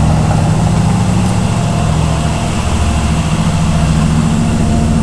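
Carbureted 1990 Cadillac V8 idling steadily just after a cold start, heard at its dual exhaust tailpipes, with the automatic choke still on.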